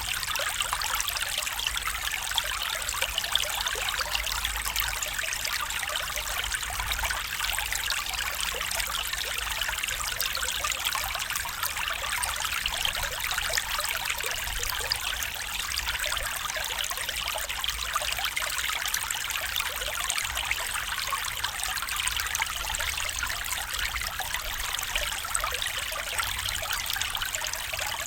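A stream running steadily over stones, a continuous trickling and burbling of flowing water without pause.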